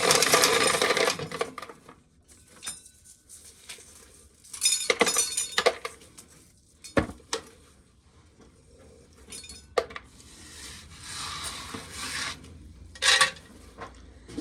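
Dry shelled corn kernels rattling into a pail, trailing off about a second in, then scattered clinks and short rattles.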